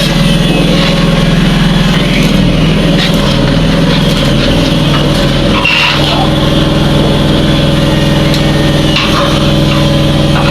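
An engine running steadily at an even speed, a loud, unchanging hum.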